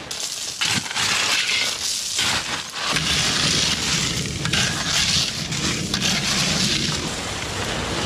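Loose river gravel clattering and crunching as it is shovelled out of a large woven sack, with many small stone strikes.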